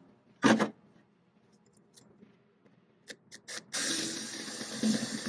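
A drill running steadily as it bores a hole through the fender's sheet-metal patch panel, starting about two-thirds of the way in. Before it, one sharp knock near the start and a few light taps.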